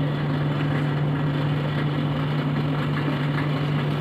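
A steady low machine hum with an even noise beneath it, unchanging throughout.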